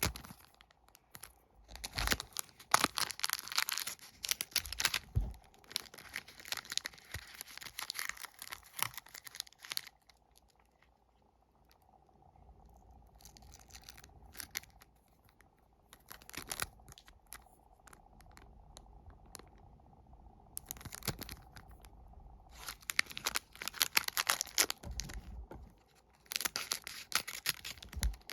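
Crinkly plastic wrappers of sticker-wafer packs being torn open and handled, in repeated bursts of crackling and tearing with short quiet pauses between them.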